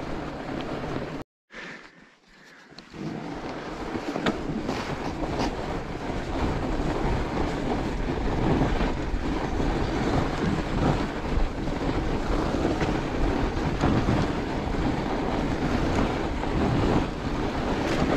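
Fat-tyre bike riding over packed snow: a steady low rumble of the wide tyres and wind on the microphone, with scattered clicks and rattles from the bike. About a second in, the sound drops out for about a second and a half, then returns.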